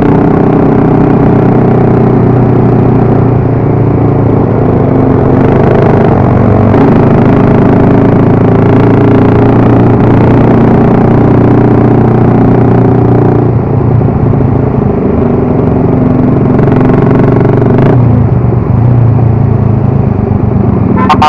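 Motorcycle engine running steadily and loudly while riding, its note changing about two-thirds of the way through.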